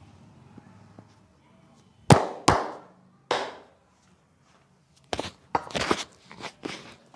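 Hands slapping a body during a massage: two sharp slaps about two seconds in, a third a moment later, then a quicker run of slaps near the end.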